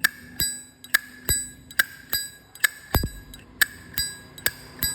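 Silver-plated 2009 Zippo lighter's hinged lid being flicked open and snapped shut over and over, about two clicks a second. Each click is a sharp metallic clink with a clear ringing ping after it, the sound the seller calls good.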